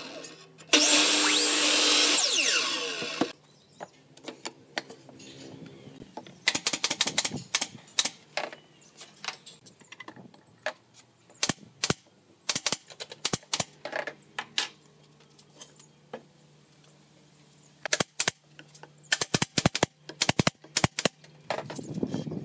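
A miter saw's spinning blade cuts through a pine board and stops abruptly about three seconds in. Then come three bursts of rapid, sharp clacks from a nail gun driving nails into pine boards.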